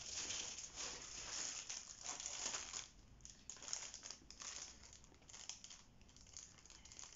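Packaging rustling and crinkling as craft moulds are handled, in irregular crackles that are busiest for the first three seconds, then sparser and fainter.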